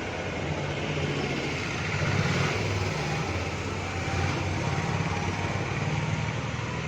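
Steady engine hum and road noise of a moving vehicle, heard from inside it.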